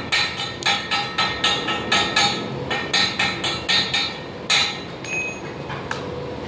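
A hammer striking metal in a quick, even rhythm of about three to four blows a second, each blow ringing briefly. The blows stop a little past four and a half seconds in.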